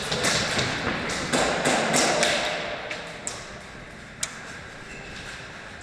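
Airsoft gunfire: a quick string of sharp cracks and knocks in the first two seconds, then two lone cracks a little later.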